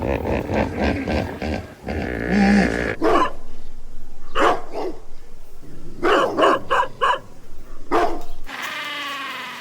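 A dog barking: short, sharp barks in quick clusters of two to four.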